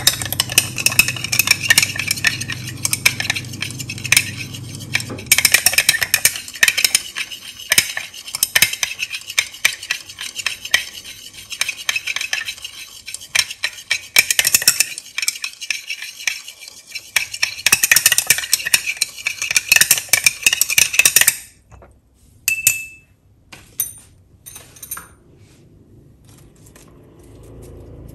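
Glass stirring rod clinking and scraping rapidly against the inside of a glass beaker, mixing citric acid into an L-arginine solution. The stirring eases off briefly about halfway, stops about 21 seconds in, and is followed by a few separate taps.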